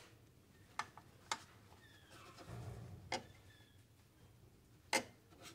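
Sharp metal clicks and clinks as the number four connecting rod cap is worked loose and pulled off the crankshaft of a Ford 8N tractor engine. Four clicks in all, the last one the loudest, with a brief scraping rustle between the second and third.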